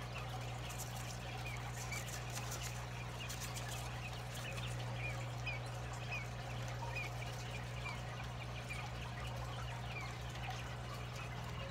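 A brood of newly hatched quail chicks peeping, many short, high chirps overlapping throughout, over a steady low hum.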